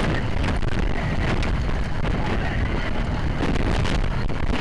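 Wind rushing hard over the microphone together with the steady rumble of a suspended roller coaster train running along its steel track at speed.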